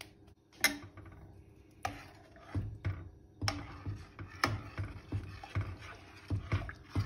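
Long metal spoon stirring cream into thick blended broccoli soup in a stainless steel pot, knocking and scraping against the pot in a quick steady rhythm of about three strokes a second, after a sharp clank near the start.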